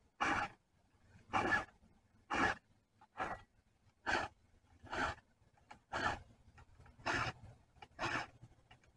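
Round chainsaw file rasping across the cutters of a chainsaw chain as it is sharpened by hand: about nine even, short strokes, roughly one a second.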